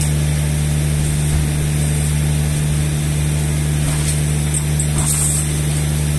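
Steady low hum of a machine running, an engine or motor, with a few faint light clicks about four to five seconds in.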